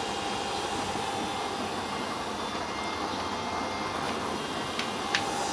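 Steady rushing hum of a homemade used-oil stove running: two 12-volt blower fans force air into the burning oil. Two light clicks near the end, after which a steady whine in the hum grows stronger.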